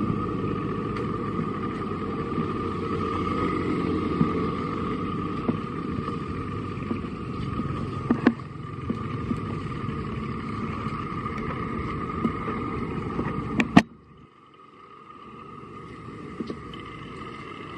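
Steady outdoor background noise: a low rumble with a continuous high hum, broken by a few sharp clicks. It drops off abruptly about fourteen seconds in and continues much quieter.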